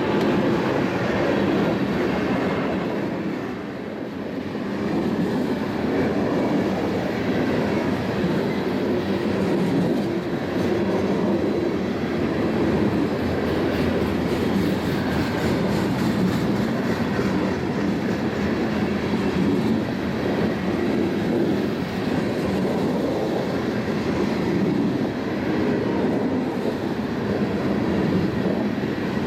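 Loaded coal gondola cars of a heavy coal train rolling steadily past on an uphill grade, their steel wheels clacking over the rail joints.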